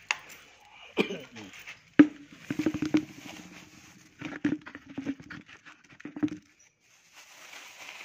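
Handling noises from a plastic tub of birdseed: a few sharp knocks, then bursts of rapid rattling taps that stop about six seconds in.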